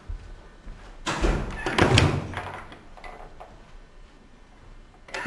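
An interior door being handled: a cluster of knocks, the sharpest a latch-like click about two seconds in, and another heavy thud near the end.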